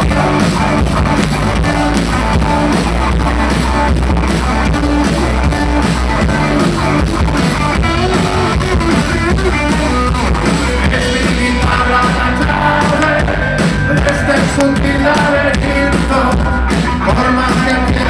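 Live rock band playing loud: electric guitar, bass and drum kit, with a male singer's voice coming in over the band a little past the middle.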